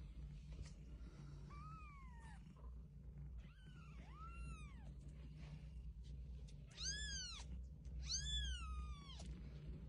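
Newborn kitten mewing: about five thin, high-pitched cries that rise and fall, the last two loudest, over a steady low rumble.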